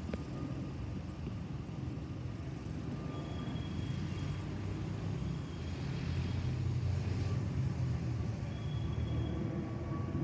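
Airbus A320neo's CFM LEAP-1A turbofan engines passing overhead: a steady, low jet rumble that grows louder about halfway through.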